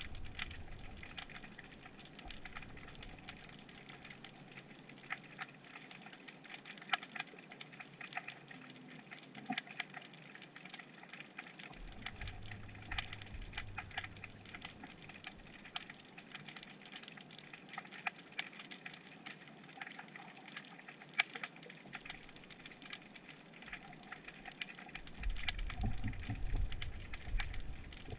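Underwater sound picked up through a GoPro's waterproof housing resting on the seabed: a steady scatter of sharp, irregular crackling clicks over a faint hiss, with a low rumble about halfway through and a louder one near the end.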